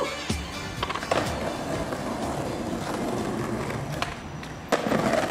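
Skateboard wheels rolling over pavement, with sharp clacks of the board, then a loud scrape of the trucks grinding along a stone ledge near the end.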